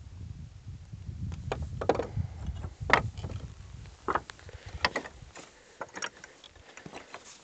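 Wind buffeting the microphone in a low rumble that dies away about five seconds in, with scattered sharp clicks and knocks throughout.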